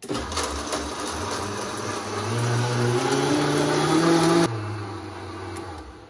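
Vitamix blender motor switching on abruptly and running at high speed, blending seawater with coralline algae flakes into a fine slurry, its pitch climbing as it spins up. About four and a half seconds in it cuts back and winds down to a stop.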